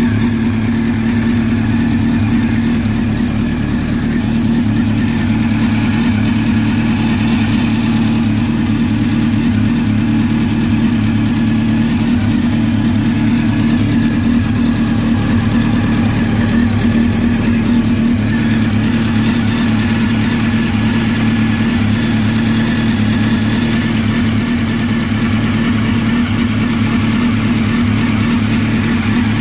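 Honda CBR600F inline-four motorcycle engine idling steadily, with a ticking noise coming from the engine whose cause the owner does not know.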